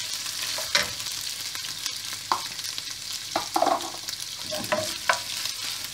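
Dried anchovies and sliced onion sizzling in hot oil in a frying pan, with a wooden spoon stirring and scraping across the pan several times.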